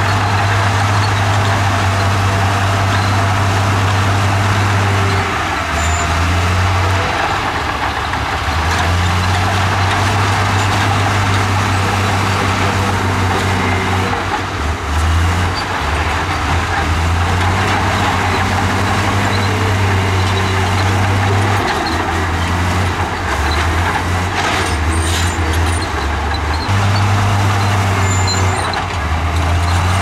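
Komatsu crawler bulldozer's diesel engine running under load while pushing rock and dirt. The low engine note dips and rises again several times.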